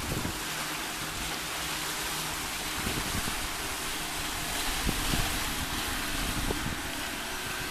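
Outboard motor of a one-person Sea Skate mini speedboat running steadily at speed, a faint low hum under a broad hiss of wind and water, with wind buffeting the microphone.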